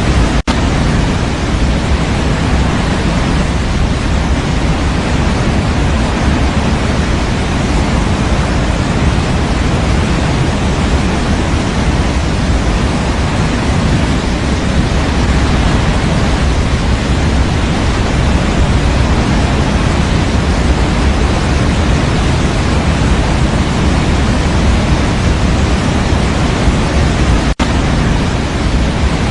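Steady electronic white noise for baby sleep, an even hiss heavier in the low end, like pink noise. It drops out for an instant twice, just after the start and near the end.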